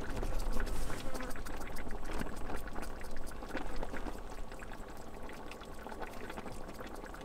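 Sauce simmering in a pot on a camping gas stove, while a hand-held spice grinder is twisted over it, giving a run of quick, irregular crunching clicks.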